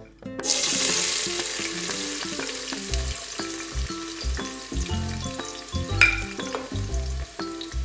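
Diced onion hitting hot oil in a stainless stockpot and sizzling, starting suddenly about half a second in, as a spatula pushes more onion off the plate, with a sharp knock about six seconds in.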